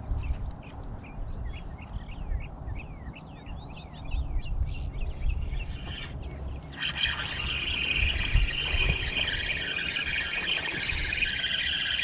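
Small birds chirping: many quick, short chirps for the first five seconds or so. From about seven seconds in, a steady high-pitched whirring sound takes over, over a low rumble.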